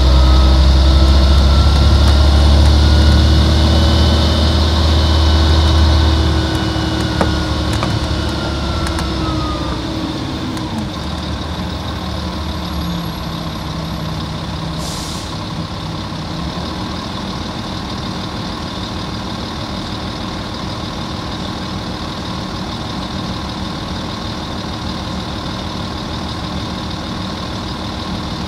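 Volvo Olympian double-decker bus with a Volvo D10A-245 straight-six diesel and ZF 5HP590 automatic gearbox: the engine runs loud at first, then a whine falls in pitch as the bus slows. It settles to a steady idle about twelve seconds in. A short hiss of air comes about fifteen seconds in.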